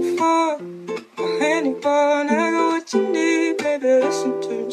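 Background music carried by plucked strings, played in short phrases of notes and chords.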